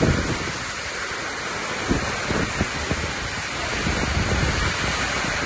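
Heavy thunderstorm rain driven by strong wind, a dense steady rush, with gusts now and then thumping on the microphone.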